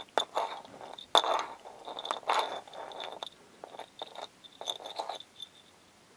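Small metal jingle bell on a cat's collar clinking and scraping against the surface as the cat moves its head and licks, in irregular bursts with a short ringing tone. The sounds stop about a second before the end.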